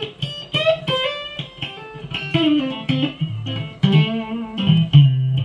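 Electric guitar played through the freshly repaired Mesa M-Pulse 600 amplifier as a playing test of its new MOSFET output stage. A quick run of plucked notes with slides settles onto low held notes near the end.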